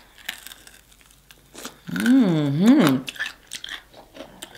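Close-miked biting and chewing of fried chicken, with short crunches throughout. About two seconds in comes a closed-mouth "mm-mm" hum that rises and falls twice, lasting about a second: the loudest sound.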